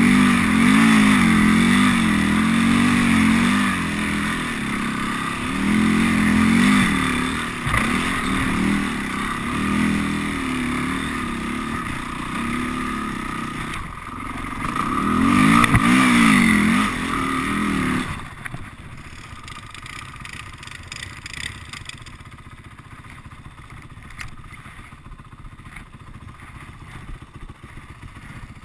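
Honda TRX450R quad's single-cylinder four-stroke engine revving up and down while churning through deep snow, with a hard surge of throttle near the middle. About two-thirds of the way in the throttle closes and the engine drops suddenly to a quiet idle.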